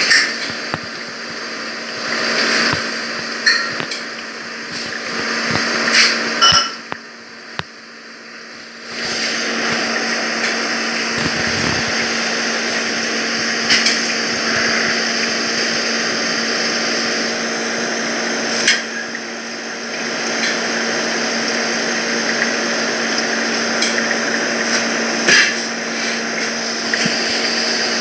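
Steady machine hum and hiss with a constant low tone, broken by scattered light clicks and knocks, and a quieter stretch about seven seconds in.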